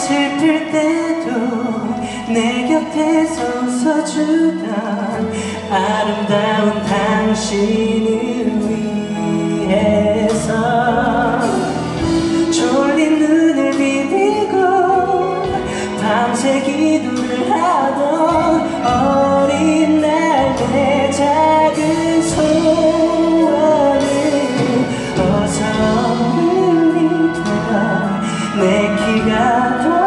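A male singer sings a Korean ballad live into a handheld microphone, with a string-led orchestra accompanying him.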